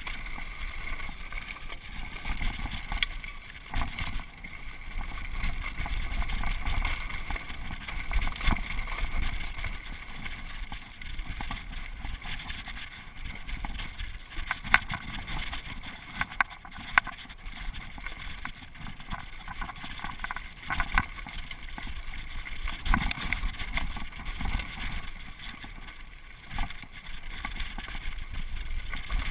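Mountain bike rolling fast down a rocky dirt singletrack: a steady rush of tyre and trail noise, broken by frequent sharp knocks and rattles as the bike hits rocks.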